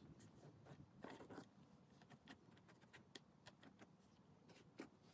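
Faint, irregular scratching and small taps of a white metallic marker tracing around a rifle laid on case foam, with one sharper tick near the end.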